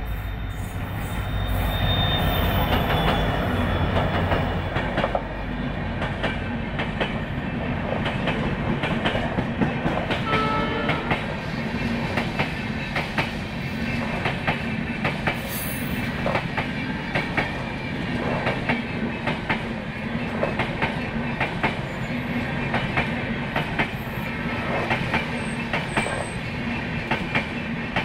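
Indian Railways diesel locomotive passing close at speed, its engine loud for the first few seconds, followed by a long rake of passenger coaches running past with a steady rhythmic clickety-clack of wheels over the rail joints.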